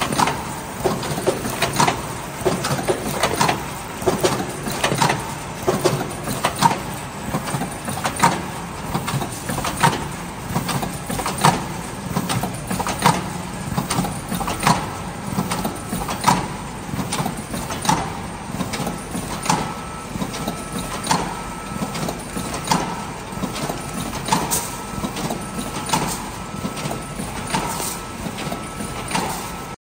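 Rotary automatic container sealing machine packing sandwiches, running with a steady mechanical clatter and a knock about every second and a half as it steps and seals each tray. A faint steady tone joins in about two-thirds of the way through.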